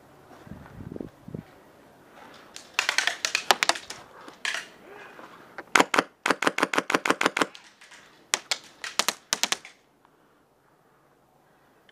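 Airsoft electric gun (AEG) firing three rapid full-auto bursts, each a quick rattle of shots lasting one to two seconds, with a low dull knock about a second in.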